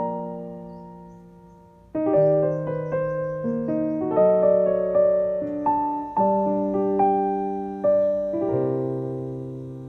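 Background solo piano music: a held chord fading away, then from about two seconds in a slow melody over sustained chords.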